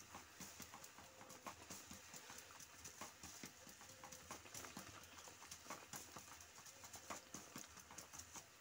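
Oil sizzling in a wok as a puffed roti deep-fries, a steady hiss dotted with irregular crackling pops.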